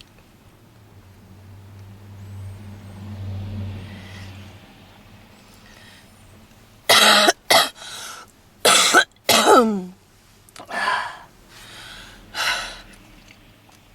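A woman's smoker's cough: a fit of about eight harsh coughs starting about seven seconds in, one of them trailing off in a falling wheeze.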